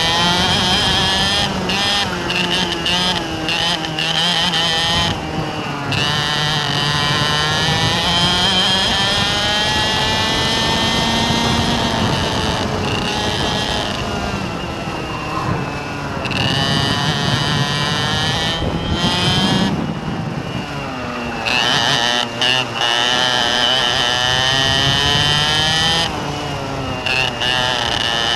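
A vehicle engine running, its pitch rising and falling over and over as the revs go up and down.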